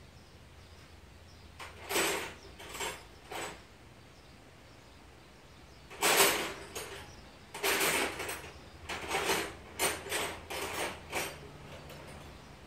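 Hand tools being rummaged for and handled: a series of short clatters and knocks, the loudest about six seconds in, with a busier run of them between about eight and eleven seconds.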